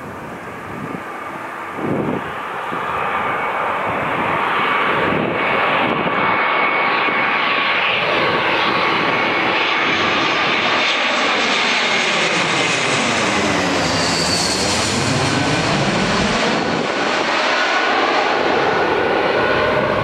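Airbus A321-200 airliner's jet engines on landing approach, passing low overhead: the rush builds over the first few seconds to a loud, steady roar with high whining tones from the engines. As the plane goes over, the sound takes on a swirling, phasing quality that sweeps down and back up.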